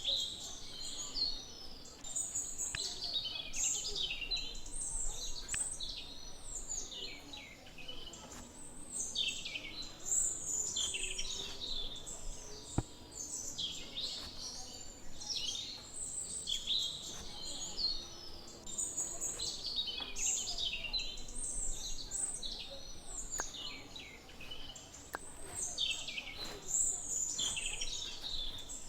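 Many small birds chirping and twittering without pause, their calls overlapping, with a single sharp click about halfway through.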